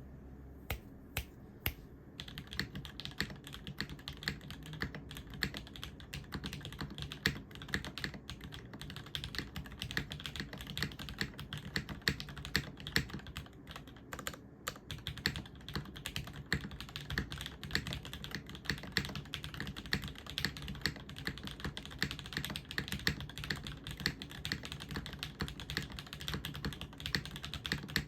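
Typing on a Jane V2 CE TKL mechanical keyboard: top-mounted aluminium plate, lubed and filmed Cherry MX HG Black linear switches with progressive springs, and GMK keycaps. A few separate keystrokes in the first two seconds, then steady, fast typing.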